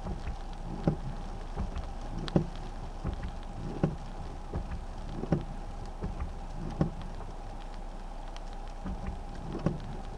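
Windshield wipers sweeping across a rain-wet windshield, heard from inside the car's cabin: a soft thump about every one and a half seconds. Light rain ticks on the glass, over a steady faint hum.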